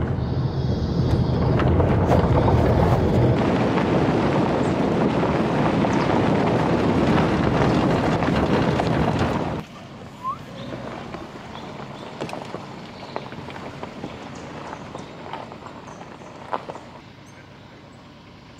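Car driving, with loud road and wind noise for about ten seconds that cuts off suddenly to a much quieter rumble with scattered small clicks as the car moves slowly along a dirt track.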